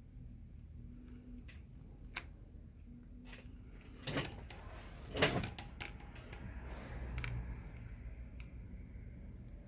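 Small handling sounds of tools and parts on a work surface: one sharp click about two seconds in, then two louder knocks about a second apart, with a few faint ticks.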